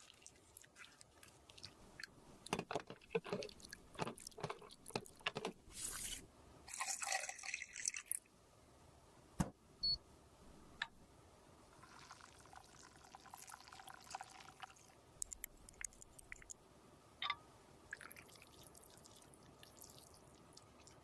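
Close-miked clicks, taps and scraping as makeup is worked by hand: the busiest rubbing and scraping comes in the first third, with softer scrapes later.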